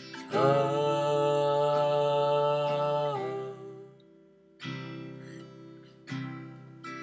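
Acoustic folk music with no lyrics sung: a long held chord for about three seconds, then two single strummed guitar chords about a second and a half apart.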